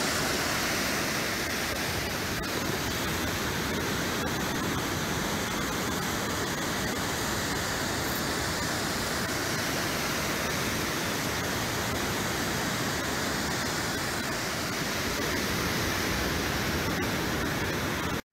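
Steady rush of ocean surf: waves breaking and foam washing over the water, an even hiss with no music. It cuts off suddenly at the end.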